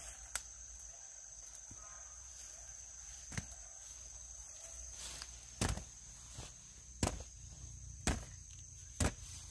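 Round green fruits dropped one by one into a woven bamboo basket, each landing with a short thud. There are about six drops, louder in the second half, over a steady high insect buzz.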